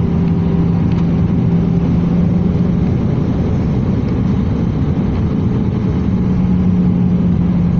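Steady roar of a jet airliner's engines and airflow heard inside the cabin on approach, with a steady low hum that fades for a few seconds in the middle and then comes back.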